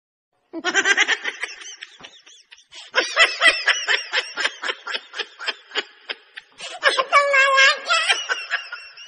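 Laughter sound effect laid over the clips: high-pitched snickering and giggling in quick repeated pulses, starting about half a second in.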